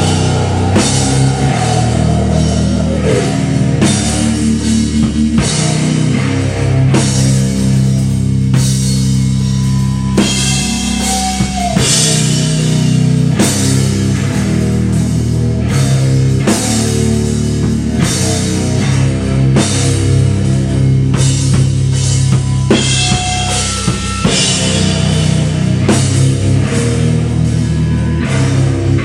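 Live rock band playing loudly: electric guitar chords over a drum kit keeping a steady beat.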